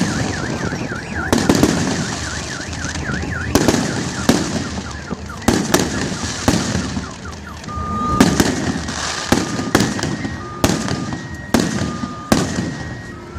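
Fireworks display shells bursting in a dozen or so sharp bangs, irregularly spaced. A car alarm sounds alongside: a warbling wail at the start, then repeated steady beeps in the second half.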